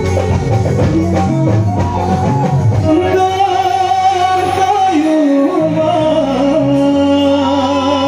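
Live band music amplified over a PA system, with drum hits in the first few seconds; about three seconds in, a male singer's voice comes in, singing a wavering melody over sustained chords.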